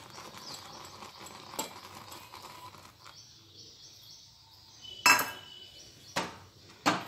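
A steel spoon clinking against a stainless steel saucepan of oats cooking in milk as it is stirred: a faint low hiss for the first few seconds, then one sharp metallic clink about five seconds in and two more near the end.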